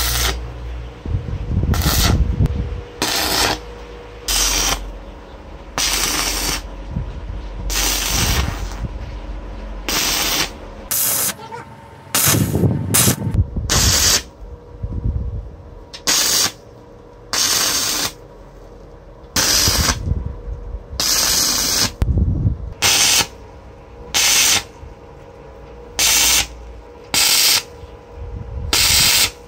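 Stick (MMA) arc welder tack-welding steel brackets to a compressor tank: about twenty short bursts of sizzling arc crackle, each a fraction of a second to about a second long, with brief pauses between tacks.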